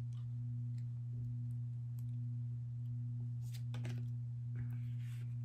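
Steady low hum with a fainter overtone above it, unchanging throughout. A few light rustles and clicks of trading cards being handled come about three and a half to four seconds in and again near the end.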